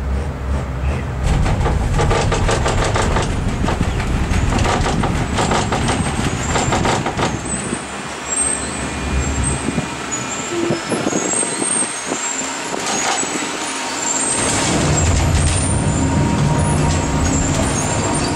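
A gondola cable car's cabin clattering and rumbling on its running gear, heard from inside the cabin as it comes into the station. There are two long spells of rapid rattling clicks over a low rumble, with short high squeaks.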